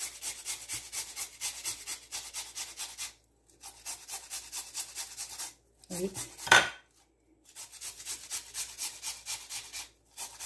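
Raw potato being hand-grated on a metal grater: even rasping strokes, about four a second, in three runs with short pauses between. One sharp, louder knock about two-thirds of the way through.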